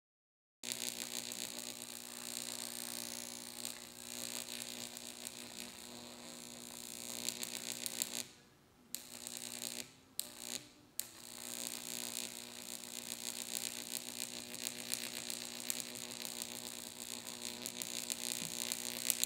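High-voltage electric arc of about 15,000 volts crackling onto the metal bezel of an electronic flight display, with a steady electrical buzz under it. It is a discharge test of the display's electrical protection. It starts about half a second in and breaks off twice for about a second near the middle.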